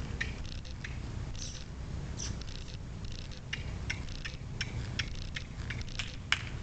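Hoofbeats of a cob trotting on a packed dirt track: a run of sharp clicks, louder and more regular near the end at about three a second as the horse comes close, over a low rumble of wind on the microphone.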